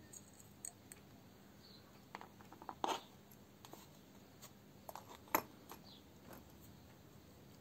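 Scattered small clicks and taps of parts and tools being handled during brake caliper work, over a low steady hum. The two loudest knocks come about three seconds and five and a half seconds in.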